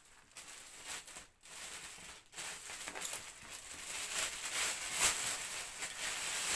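Clear plastic bag crinkling and rustling as it is worked off a bicycle rear rack by hand, light at first and busier after about two seconds, with one sharper crackle about five seconds in.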